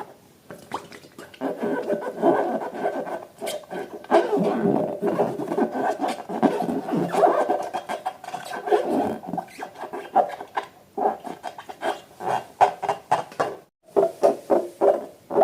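Slime and rubber balloons being squeezed and handled: irregular wet squelching with rubbery squeaks. Near the end comes a run of quick squishes, about three a second.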